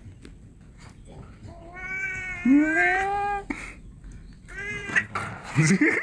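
A cat meowing: one long drawn-out meow, then a shorter meow about a second and a half later.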